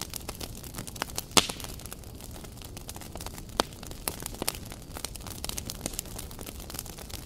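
Small wood fire crackling, with irregular sharp pops over a steady hiss and one loud pop about a second and a half in.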